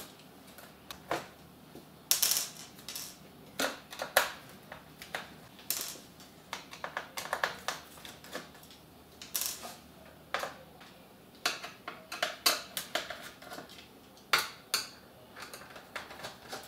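Small screwdriver removing screws from a DJ controller's circuit board: irregular light clicks, taps and short scrapes of the bit on the screw heads and of small metal screws being handled.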